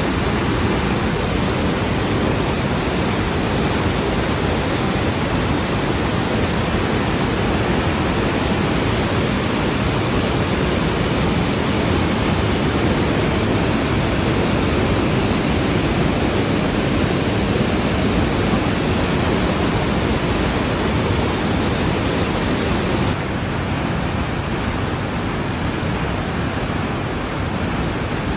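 Waterfall rushing: a loud, steady wash of falling water, a little quieter from about 23 seconds in.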